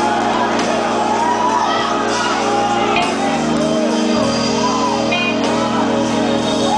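Sustained organ chords, changing about three seconds in, with voices shouting and calling out over them in a worship service.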